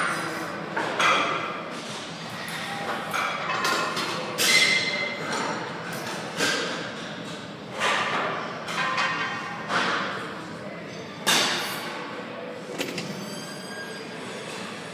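Sharp thuds and clanks, about one every one to two seconds at uneven spacing, each echoing briefly in a large gym hall, over faint background music.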